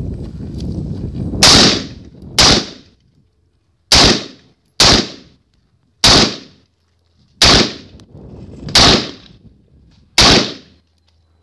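Rifle firing eight single shots, about one a second at an uneven pace, each crack followed by a short echo.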